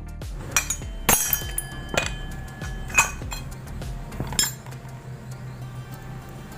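Sharp metallic clinks of hand tools against the metal parts of a Honda Vario 125's rear CVT pulley while its inner circlip is being removed: about five clinks in the first four seconds or so, each with a short ring.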